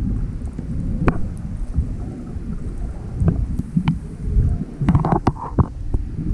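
Muffled underwater sound picked up by a camera in its housing: a low churning rumble of moving water with scattered clicks and knocks, and a brief brighter rush of noise about five seconds in.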